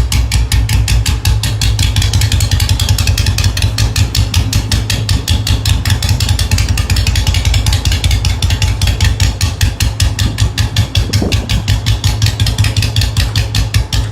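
Royal Enfield single-cylinder engine idling with its steady, even thump, one beat after another at a quick, regular pace.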